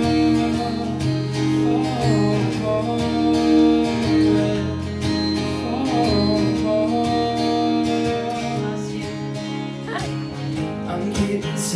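Acoustic guitar song: strummed guitar under a held, wavering melody line, in an instrumental break between sung lines.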